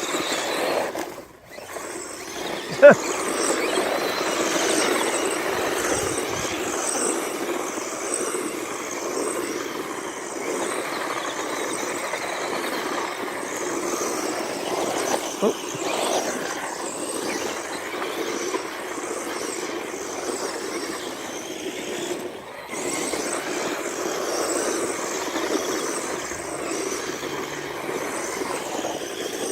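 Small electric RC cars, among them a Traxxas LaTrax, driving flat out: a steady rushing mix of motor whine and tyres on the ground, with a sharp knock about three seconds in.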